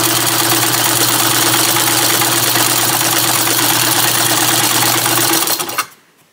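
Mid-century Japanese Singer 128 clone vibrating-shuttle sewing machine running fast on its electric motor, stitching a long straight seam through folded flannel: a steady motor hum under a rapid needle-and-shuttle clatter. It stops suddenly about five and a half seconds in.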